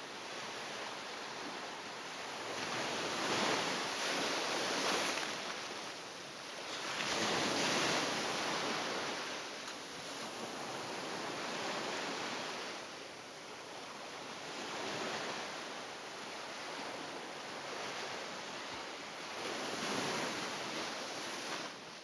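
Ocean surf: small waves breaking and washing up a sandy beach, the rushing hiss swelling and easing every few seconds.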